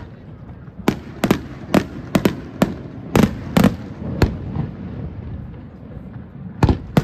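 Professional display fireworks exploding in a quick, irregular run of sharp bangs, about ten in the first four seconds or so. After a short lull two more bangs come close together near the end.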